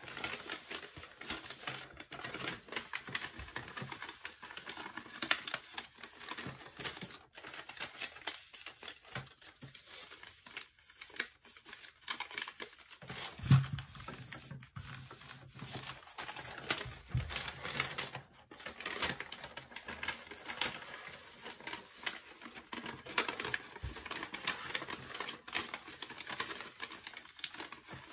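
A sheet of origami paper rustling and crackling as hands fold and crease it, with a dull thump about halfway through as the palms press the folded paper flat against the cutting mat.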